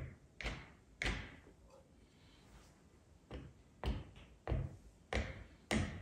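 Paintbrush dabbing thick oil paint onto a stretched canvas: a series of short taps with a slight brushy scrape, about eight of them, three close together at the start, then a pause, then five more at roughly even spacing.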